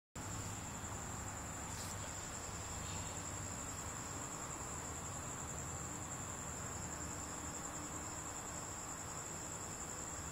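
A steady, unbroken high-pitched whine over a constant low hiss.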